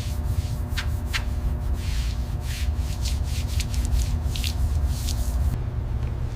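Irregular rubbing strokes on a surface, like sanding or hand-polishing, over a steady low workshop hum. The sound changes abruptly near the end.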